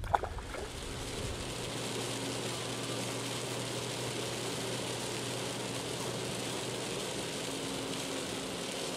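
Inside a car driving on a rain-soaked highway: a steady hiss of wet road and rain with a low engine hum, which drops away about seven seconds in. A short sharp sound comes at the very start.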